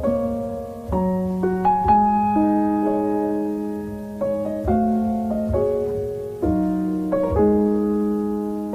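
Slow piano chords, each struck and left to ring and fade before the next.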